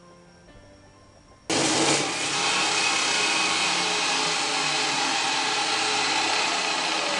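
DeWalt chop saw kicking on suddenly about a second and a half in and cutting through a metal bar: a loud, steady grinding that holds to the end. Faint background music is heard before it starts.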